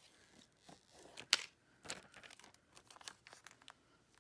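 Clear plastic transfer tape being handled and peeled, crinkling and crackling in short, faint rustles, with one sharp crackle about a second in.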